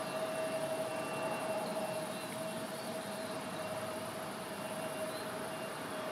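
De Havilland Canada Dash 8 Q400 turboprop moving along the runway: a steady engine whine over an even hiss.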